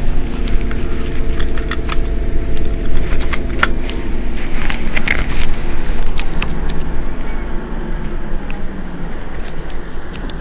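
Iveco Crossway LE bus engine idling with a steady low rumble while the bus stands at a stop, with scattered sharp clicks over it.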